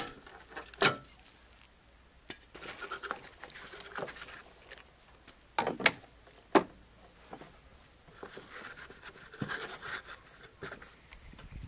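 Hands fitting a turn-signal repeater lens into a car fender and then wiping the headlight with a rag: a few sharp clicks and taps among soft rustling, with rubbing near the end.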